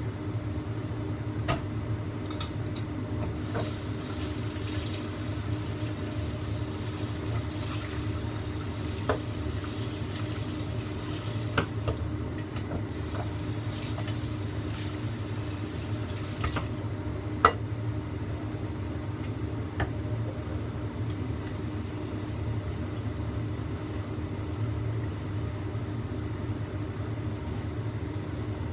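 Water boiling under the lid of a stainless wok over a gas burner as fish steams: a steady bubbling hiss over a low rumble. A few small clicks sound now and then, the sharpest about two-thirds of the way through.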